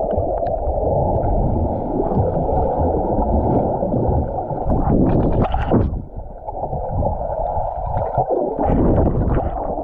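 Muffled underwater sound of a swimming pool heard through a submerged action camera: churning water and exhaled air bubbles gurgling. Brief, brighter splashing comes about five seconds in and again near the end.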